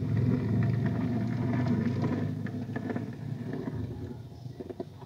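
Die-cast toy car's wheels rolling across a plastic surface: a low rumble that fades out about four seconds in, with a few small clicks.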